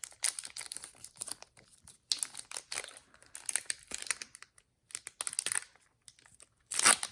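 Foil booster-pack wrapper of a Pokémon trading card pack crinkling and tearing as it is opened by hand, in irregular crackles with a short louder rip just before the end.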